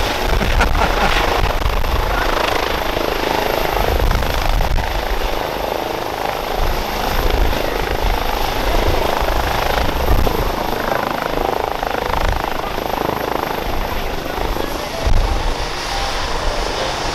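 Airbus EC135 P2+ police helicopter hovering low and setting down, its twin Pratt & Whitney PW206B turboshafts whining high over the rotor noise, with the rotor downwash buffeting the microphone in low rumbling gusts. The turbine whine dips slightly in pitch near the end as it settles on its skids.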